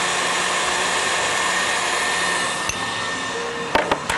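Electric stand mixer running steadily, its whisk beating egg whites and sugar into meringue. A few sharp clicks come near the end.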